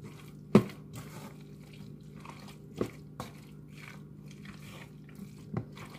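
A spoon stirring a thick, creamy mixture of cream of mushroom soup and milk in a bowl: wet squelching strokes with a few sharp knocks against the bowl, the loudest about half a second in. A steady low hum runs underneath.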